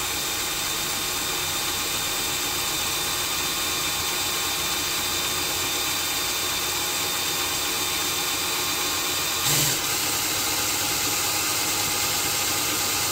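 Power drill running steadily at slow speed with a 1/8-inch Spyder Mach Blue bit cutting into a hard steel shaft held in a vise. There is a brief louder burst about nine and a half seconds in.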